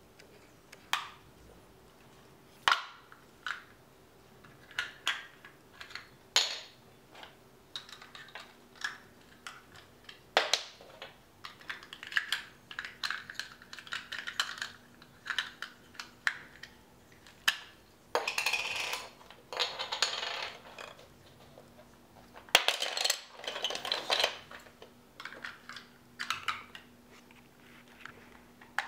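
Plastic LEGO DUPLO bricks clicking and knocking as they are handled and pressed together, in scattered single clicks with two longer stretches of clattering in the second half.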